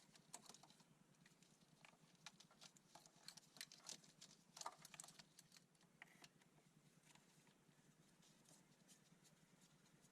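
Faint, irregular light clicks and taps, thick for about the first six seconds and then thinning out, over a quiet low hum.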